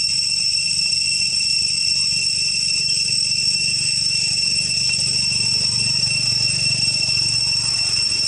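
Insect chorus droning in a steady, unbroken high pitch, with a low rumble underneath.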